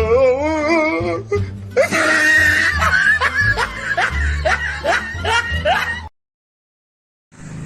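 Edited-in music with a heavy bass beat and wavering, sliding melody lines, which cuts off abruptly about six seconds in. After about a second of total silence, other sound starts near the end.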